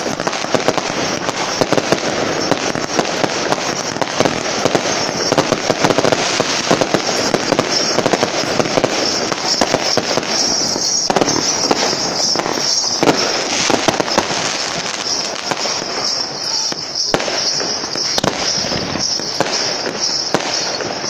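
Aerial fireworks bursting in a dense, continuous barrage of pops and crackles, with many sharp bangs throughout.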